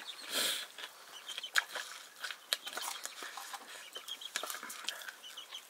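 Paddy rice roasting in a hot pan, crackling and popping irregularly, with a brief rush of noise about half a second in.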